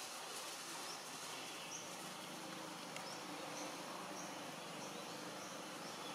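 Steady outdoor ambience of buzzing insects, with faint short high chirps about once a second and a faint low drone underneath.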